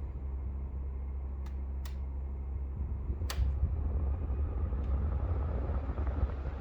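Pioneer 9000 BTU mini split running with a steady low hum, broken by four sharp clicks, the loudest about three seconds in. The airflow rush grows louder after it. The clicking comes from a brand-new unit and is unwanted; the owner takes it for a fault.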